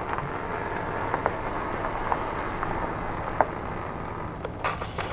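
A vehicle's engine running, heard from inside the cab as a steady hum, with a few light clicks.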